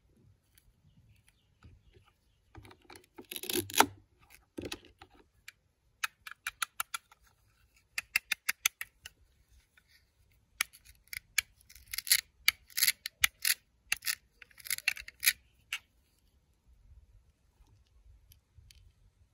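Hard plastic toy cake slices being handled, pulled apart and fitted back together, making several bursts of rapid clicking and crackling that stop a few seconds before the end.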